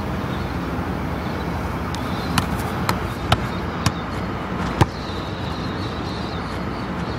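A football struck by a foot: five sharp ball touches, unevenly spaced over about two and a half seconds, the last one loudest, over steady background noise.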